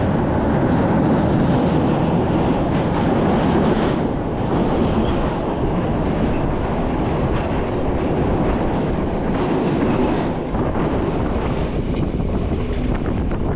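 Passenger train running along the track: a steady rumble and rattle of the moving carriage with wheels clicking over rail joints.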